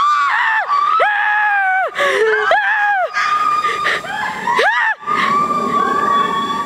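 Girls screaming: long, shrill shrieks that swoop up and down, at times two voices overlapping, ending in a steadier held shriek.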